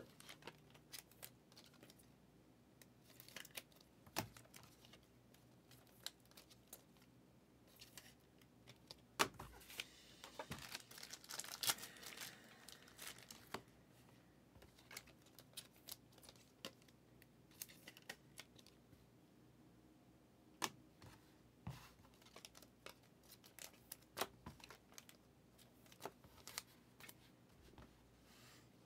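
Faint handling of trading-card packaging and cards: scattered light clicks and taps, with a few seconds of tearing and crinkling wrapper about ten seconds in.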